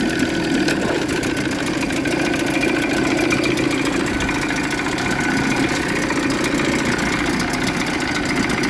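1978 Evinrude 35 hp two-stroke outboard motor running steadily and evenly, back in working order with a new CDI power pack.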